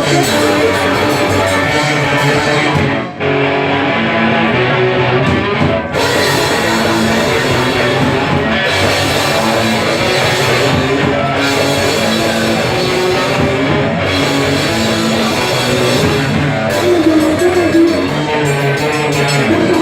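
Punk rock band playing, with loud electric guitar and a drum kit, and a brief break about three seconds in.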